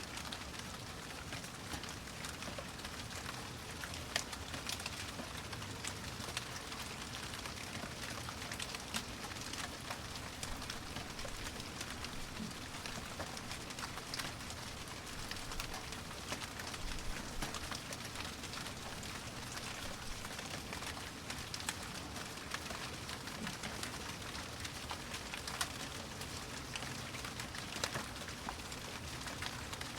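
Steady rain falling on a surface, a continuous hiss with many individual drops ticking through it.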